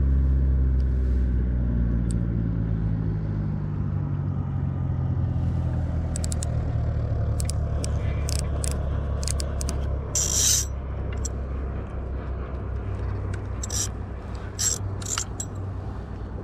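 Low, steady hum of a motor, its pitch sinking slightly over the first few seconds. In the second half it is joined by scattered sharp clicks and a few short splashy hisses.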